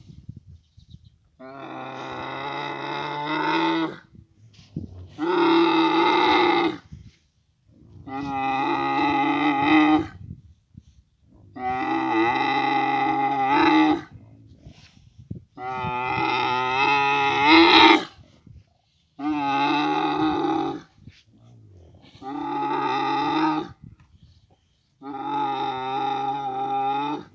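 Dromedary camel calling repeatedly during mating. There are about eight long, steady, pitched calls of roughly two seconds each, one about every three seconds, and the loudest comes about two-thirds of the way through.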